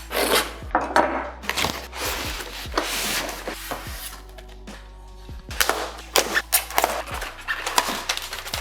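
Cardboard shipping box being opened by hand: repeated tearing and scraping of cardboard and tape, with sharp knocks, over background music.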